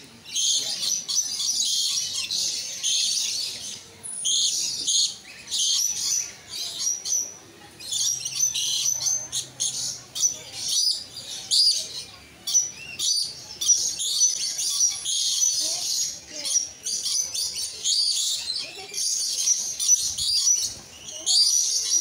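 Many birds chirping and chattering, high-pitched and near-continuous, with a few short lulls.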